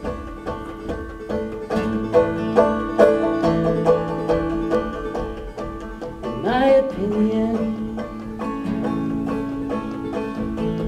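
Acoustic guitar and open-back banjo playing an instrumental break together, with quick, steady plucked notes. One note swoops in pitch about six and a half seconds in.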